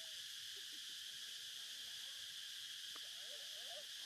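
Steady high-pitched drone of an insect chorus.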